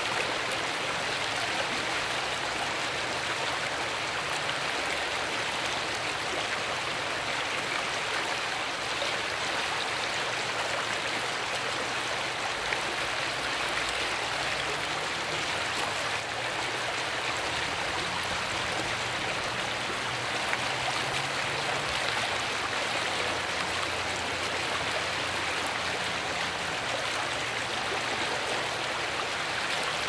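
Shallow creek running over a rocky bed, a steady rush of water breaking through small riffles.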